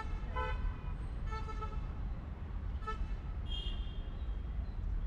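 Diesel locomotive horn giving a few short toots in the first three seconds, the longest about a second and a half in, over a steady low rumble.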